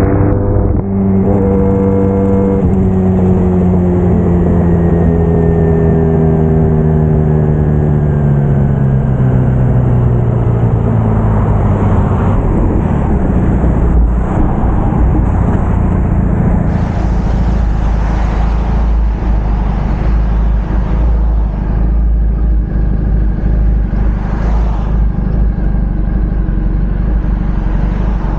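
Braaap Moto4 motorcycle engine under way. Its note falls steadily in pitch over the first ten seconds or so, then gives way to a steadier rumble mixed with rushing wind and road noise.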